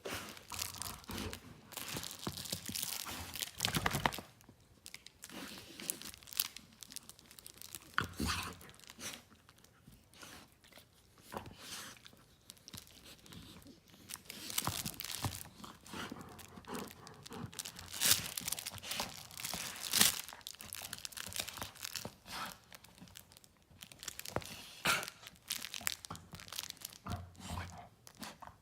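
Black Labrador tearing a toy apart with its teeth: repeated, irregular ripping and crunching bursts, loudest about two-thirds of the way through.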